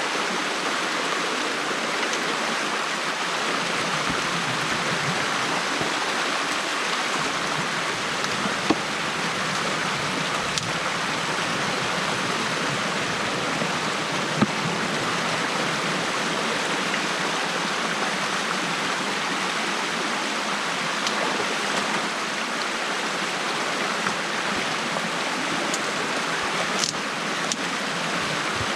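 Water running steadily through an opening in a beaver dam, with two brief clicks about nine and fourteen seconds in.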